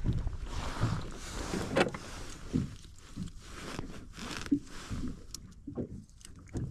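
Irregular small knocks, clicks and rustles of fishing tackle and a freshly caught horse mackerel being handled against a small boat's gunwale, over a low steady rumble.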